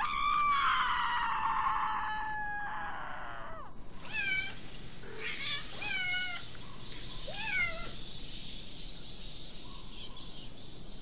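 A cat's long yowl that falls slowly in pitch, followed by three short meows, over a faint steady hiss.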